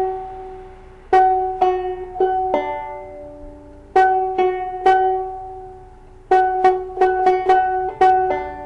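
Banjo strings plucked in turn, the fifth string and the first string fretted at the fourth fret, to match their pitch while tuning the fifth string down from G to F sharp. The notes come in small groups of a few plucks, each left to ring out before the next group.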